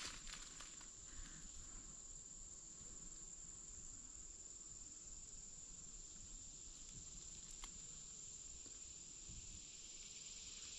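Faint, steady high-pitched insect chorus, a continuous unbroken drone.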